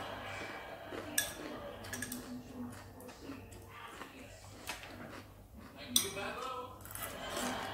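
Metal chopsticks clinking against a porcelain bowl during a meal, with a few sharp clinks. The loudest comes about six seconds in.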